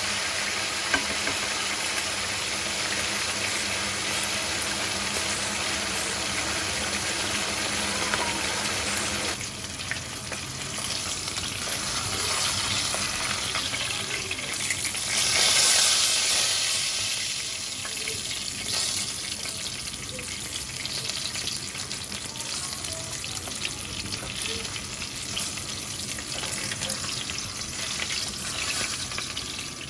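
Tilapia fish frying in hot oil in a pan, a steady sizzle. The sizzle drops a little about nine seconds in, then swells loudly for a moment around fifteen seconds in.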